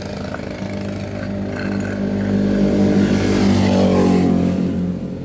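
A motor vehicle engine passing close by: it grows louder to a peak about three to four seconds in, then drops in pitch and fades as it moves away.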